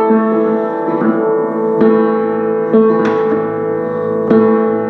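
Kimball console piano, notes and intervals struck one after another about once a second with the sustain pedal held down so they ring on together: a tuner's check of the tuning.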